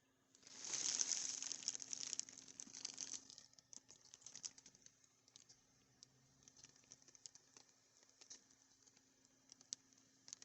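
Mechanical keyboard switches clicking: a dense, rapid flurry of key clacks for about three seconds, then scattered single clicks.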